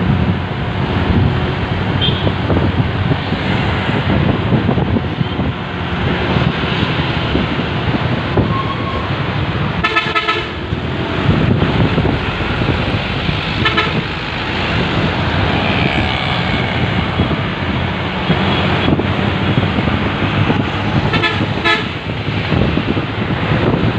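Road traffic heard from a moving motorbike, with a steady rush of wind and road noise and vehicle horns honking: one longer honk about ten seconds in, a short one a few seconds later, and two quick honks near the end.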